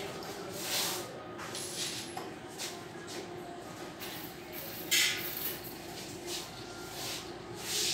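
Steady hum of workshop equipment, with a few short scraping, clinking handling noises from moving about the work, the loudest about five seconds in.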